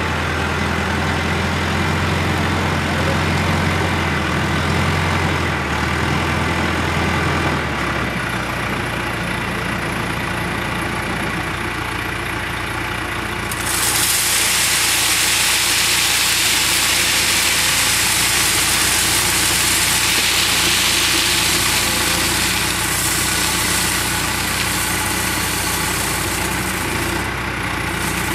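Backhoe loader's diesel engine running, revved up for the first several seconds, then dropping back to a lower, steady run. About halfway in, a loud steady hiss joins and lasts until near the end.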